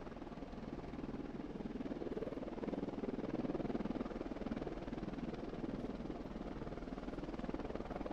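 AH-64D Apache attack helicopter running steadily, its rotor noise growing a little louder about three seconds in.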